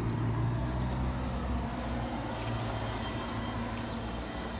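A motor vehicle's engine running with a steady low hum that slowly fades.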